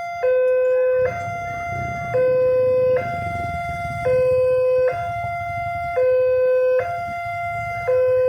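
Electronic warning siren of a railway level crossing, alternating between a low and a higher tone, each held about a second, the low tone louder. The alarm signals a train approaching the crossing.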